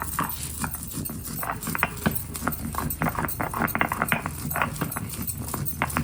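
Masala being ground by hand: quick, irregular clacking and scraping strokes of the grinder over the spice paste.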